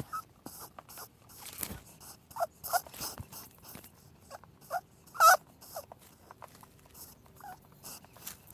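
Rabbits rustling and nibbling: a run of small clicks and crunches, with several short squeaks. The loudest squeak comes about five seconds in.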